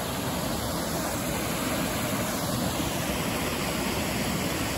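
Mountain river rushing over small waterfalls: a steady, even rush of water.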